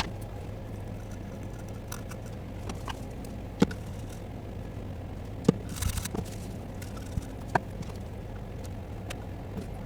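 A few light clicks and a short scrape of small tools and parts being handled during circuit-board repair, over a steady low electrical hum.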